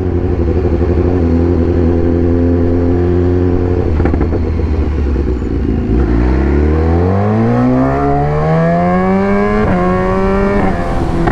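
BMW S1000R's inline-four engine running steadily at low revs, with a few sharp exhaust pops about four seconds in. The revs then climb under acceleration, with two quick upshifts near the end.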